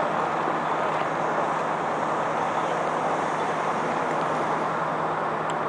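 Steady noise of freeway traffic, with the low, even hum of an idling engine underneath.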